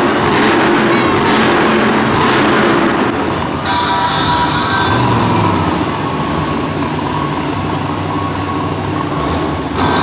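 Monster Jam trucks' supercharged V8 engines running loudly, echoing around an indoor arena.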